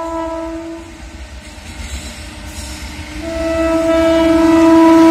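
Indian Railways electric locomotive's air horn sounding as the train approaches. One blast fades out about a second in and a second, longer blast begins about three seconds in. The train's running noise grows louder under it toward the end.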